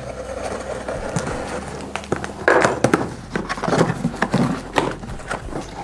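Utility knife slitting the packing tape along a cardboard box, a steady scratchy cut, followed from about two and a half seconds in by repeated loud cardboard scrapes and rustles as the box is worked open.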